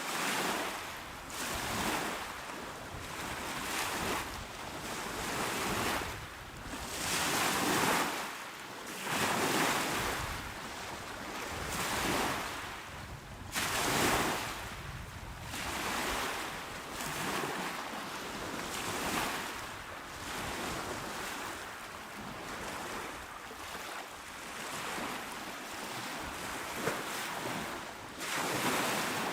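Small, calm waves washing onto a shore: a steady hiss of surf that swells and ebbs every couple of seconds as each wave breaks and draws back.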